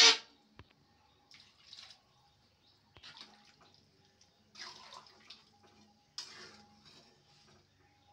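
A spoon stirring chicken and potato curry in thin, freshly added gravy in a pan: short sloshing, scraping strokes about once a second, with an occasional click of the spoon against the pan. It is preceded by one loud, brief burst right at the start.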